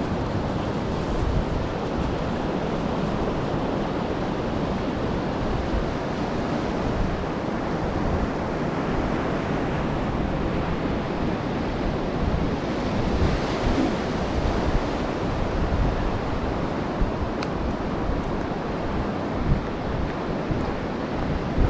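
Ocean surf washing onto a beach, with wind buffeting the microphone in a low rumble. The surf swells and hisses a little past the middle.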